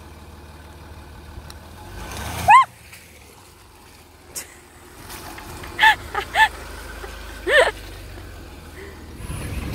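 Land Rover Discovery engine running low as it creeps through a muddy puddle, with splashing. Several short, high-pitched voice calls rise and fall over it.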